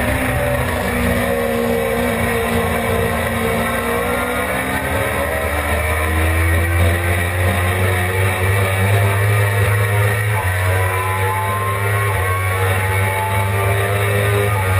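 Suzuki GSX-R600's inline-four engine at speed, its pitch sinking in the first few seconds and then climbing steadily from about the middle as the bike pulls harder, with wind noise rushing over the microphone.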